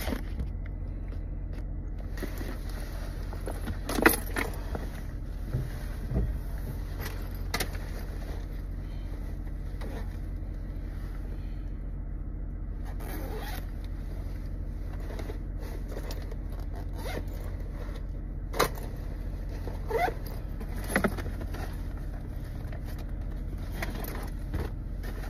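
Steady low hum of a car engine running, heard from inside the car, with scattered rustles, clicks and knocks of things being handled. The sharpest knock comes about four seconds in.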